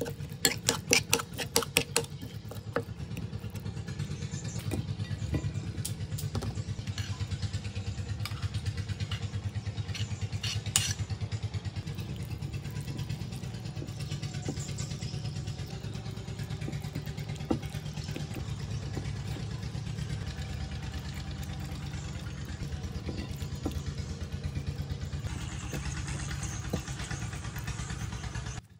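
Metal spoon clicking rapidly against a ceramic bowl as chili sauce is stirred, stopping about three seconds in. Under it a steady, low engine-like drone runs on and cuts off suddenly near the end.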